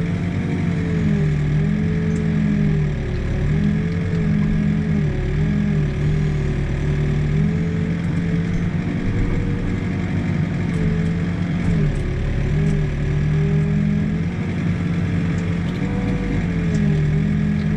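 Excavator's diesel engine running steadily, heard from inside the cab, with a wavering higher whine over it. The pitch dips briefly and recovers a few times as the boom and bucket work in the footing hole.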